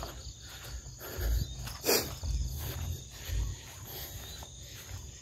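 Footsteps walking through grass and over a dirt track, low thuds about once a second, with one sharp brushing knock just under two seconds in. Insects chirr steadily and high-pitched in the background.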